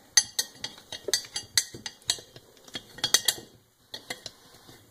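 Metal hand tool clicking and clinking against the steel rim of a riding-mower wheel, in a quick, irregular string of sharp clicks that thins out after about three and a half seconds.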